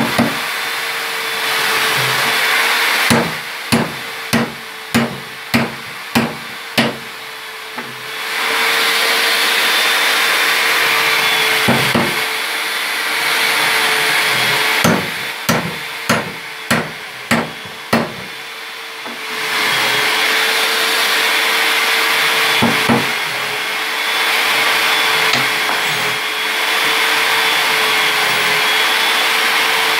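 Hammer driving metal tuning pins into a cimbalom's pin block: two runs of about eight sharp blows, one a few seconds in and one about halfway, with single blows in between. A steady whirring hum with a faint held tone fills the rest.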